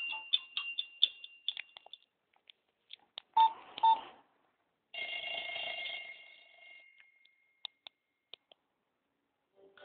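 Nokia X2-02 ringtones and alert tones played through the phone's speaker and picked up by another phone's microphone. A run of quick high beeps dies away in the first two seconds, two loud clicks come about three and a half seconds in, and a short tone sounds and fades away about five seconds in. A few soft ticks follow, and a new tone starts at the very end.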